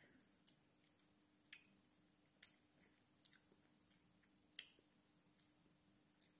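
Faint wet lip-smacking and tongue clicks of someone tasting a mouthful of chocolate milk drink: about seven short, sharp smacks spaced irregularly, over near silence.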